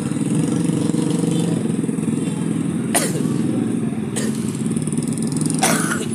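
Motorcycle engine running steadily, with three sharp clicks about three, four and nearly six seconds in.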